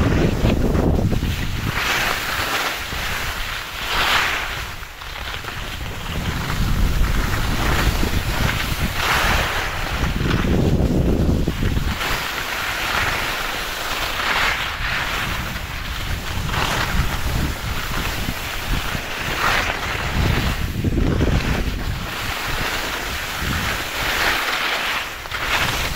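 Wind rushing over the microphone and skis scraping across the snow as the skier carves turns, the hiss swelling and fading every two to three seconds.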